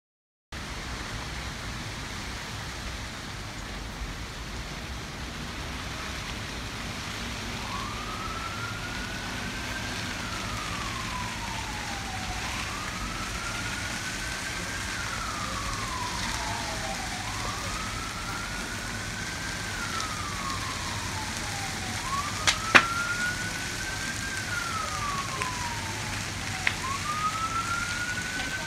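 Emergency vehicle siren in a slow wail, rising and falling about every five seconds, coming in about eight seconds in over a steady rushing noise. A few sharp pops near the end.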